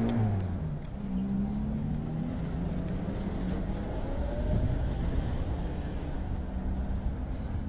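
Street traffic: a vehicle engine running over a steady low rumble, with a faint rising whine a few seconds in.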